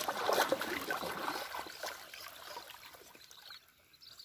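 Water splashing and swishing as someone wades through shallow, weedy water pushing a metal basin across the surface. It is loudest in the first second or so, then dies down to light sloshing.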